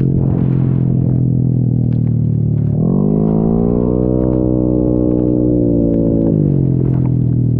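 Yamaha Mio J scooter's 150 cc single-cylinder engine running on the move. It holds a steady note, rises as the throttle opens about three seconds in, holds the higher pitch, then drops back about six seconds in.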